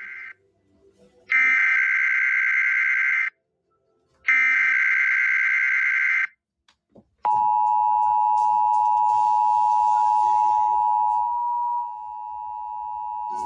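Emergency Alert System SAME header: the tail of one burst of screechy digital data tones, then two more bursts about two seconds long, a second apart. About seven seconds in, a steady two-pitch EAS attention tone starts and holds, dipping in level near the end. It announces a weekly weather-radio test.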